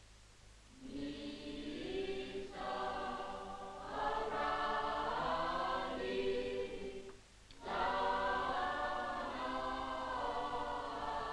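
A choir singing a slow, hymn-like melody in several voices. It comes in about a second in and goes on in phrases, with short breaths about two and a half and seven and a half seconds in.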